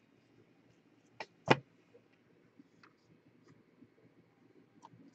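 Trading cards being handled on a table: two sharp taps about a second in, the second louder, then a few faint small clicks.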